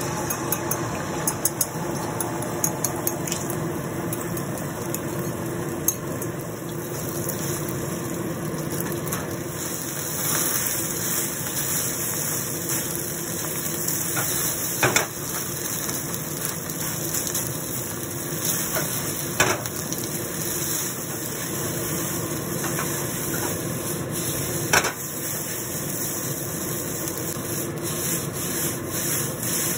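Egg and rice frying in a hot oiled wok over a gas burner: a steady sizzle, with the spatula stirring and scraping the rice against the wok. A few sharp knocks of the spatula on the wok stand out in the second half.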